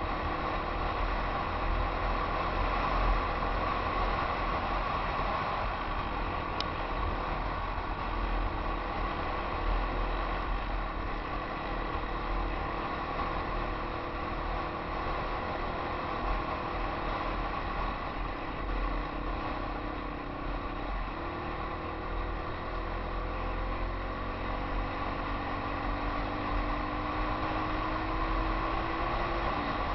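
Yamaha XT250's single-cylinder four-stroke engine running steadily as the dirt bike rides a sandy trail, heard from a helmet camera with a heavy wind rumble on the microphone. The engine pitch climbs slowly over the last several seconds, then drops just before the end.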